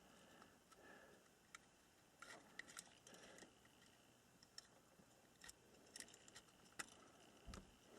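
Near silence with scattered faint, short clicks: small metal parts of a Colt 1908 vest pocket pistol being handled and fitted together during reassembly.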